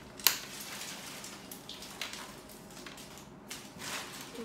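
Plastic clicks and crinkly rustling as an LOL Surprise Under Wraps plastic toy capsule is handled and worked open, with one sharp click shortly after the start.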